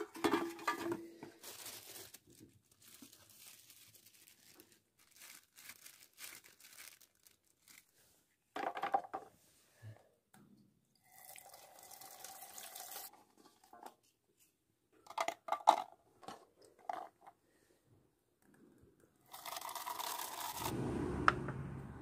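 A string of separate handling sounds: plastic bottles clattering in a woven sack at the start, water splashing into an aluminium basin about halfway through, and a longer, louder noise near the end.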